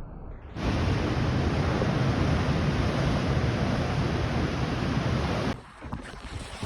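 Steady rushing noise of wind and water at the shore, starting abruptly about half a second in and cutting off sharply near the end.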